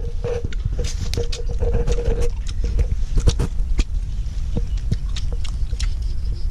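Close-up chewing and crunching of grilled pork knuckle: irregular wet clicks and smacks of eating over a steady low rumble.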